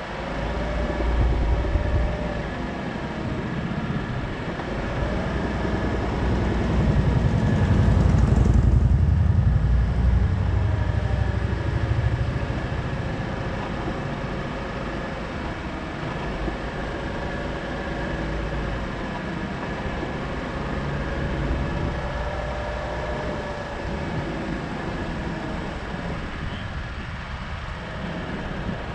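A car running, with a low engine and road rumble that swells to its loudest about seven to ten seconds in. A faint steady hum sits above it.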